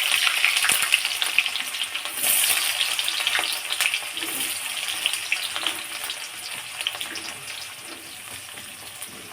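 Chopped onions sizzling in hot oil in a kadai, with a spatula stirring and scraping in short clicks. The sizzle is loudest at first and gradually dies down as the onions settle in the oil.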